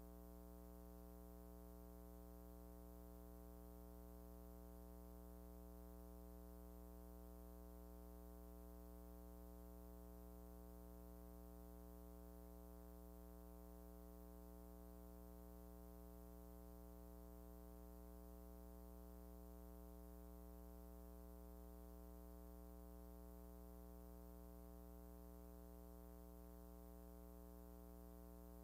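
Near silence, with a faint steady electrical hum and its overtones that never changes: the tape or transfer noise of a silent film.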